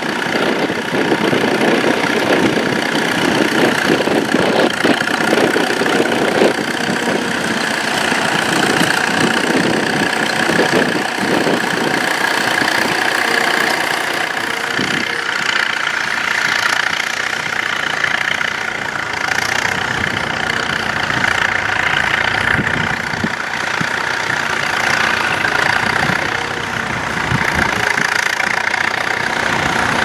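1939 Allis-Chalmers Model U tractor's four-cylinder engine running steadily under load as it pulls a trailed plough.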